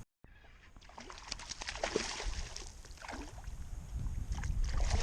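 Water sloshing and splashing against a kayak hull, with a low rumble that grows louder from about two seconds in.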